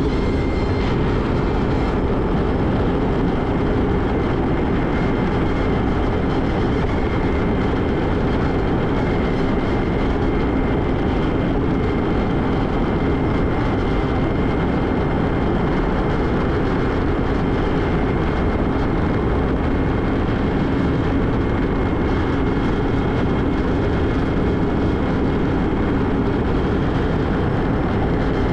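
Kawasaki Ultra 310 jet ski's supercharged four-cylinder engine and jet pump running steadily at full throttle, holding top speed of about 108 km/h. A steady rushing noise runs under a constant engine tone.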